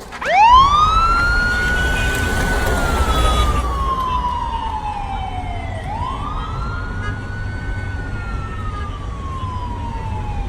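Police siren wailing in slow cycles. It swoops up to a high pitch about half a second in, holds, then slides slowly down over several seconds before swooping up again twice more, over a steady low rumble.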